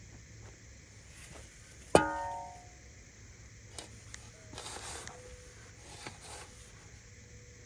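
A single sharp clang about two seconds in, ringing briefly with a metallic tone before fading, followed by a few faint clicks and rustles.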